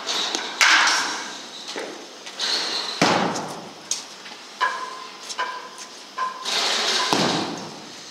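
Baseball bats hitting balls in an indoor batting cage: three loud, sharp cracks a few seconds apart, each ringing on briefly, with smaller knocks in between.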